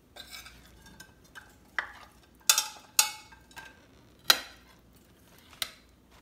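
Metal spatula scraping and clinking against a frying pan and plate as fried eggs are lifted onto the plate, with several sharp clinks, the loudest about two and a half, three and four seconds in.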